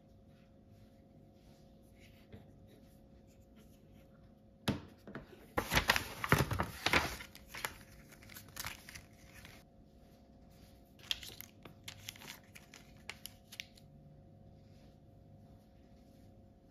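Foil cosmetic sample sachets and a paper envelope being handled, crinkling and rustling. A sharp click comes about four and a half seconds in, followed by a couple of seconds of dense crinkling and then lighter, scattered crinkles later on.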